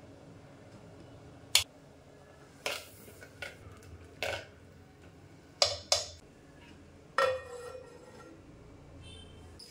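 Spoon and metal ladle knocking against a clay cooking pot several times during stirring, in short sharp clacks. About seven seconds in, a steel plate lid is set down on the pot's rim and gives a brief metallic ring.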